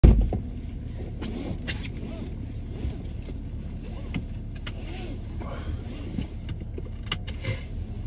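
Inside a car cabin: a steady low rumble, with clothing rustling and several short sharp clicks as the occupants fasten their seatbelts. A heavy thump right at the start is the loudest sound.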